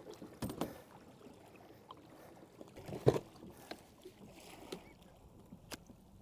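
Scattered knocks and thumps on a plastic kayak as a just-landed mahi and gear are handled aboard, over faint water lapping at the hull. The loudest knock comes about three seconds in.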